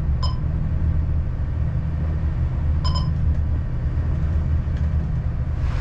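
Steady low drone of the trawler's diesel engine heard in the wheelhouse while under way in rough water, with two brief high-pitched pings, one near the start and one about three seconds in.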